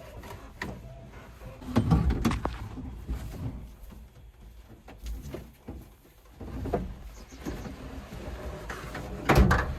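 JCB 3DX backhoe loader at work: irregular clunks and knocks, loudest about two seconds in and again near the end, over a low engine rumble.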